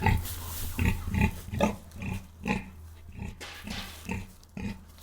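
Domestic pig grunting, a run of short grunts at roughly two a second, over a steady low hum.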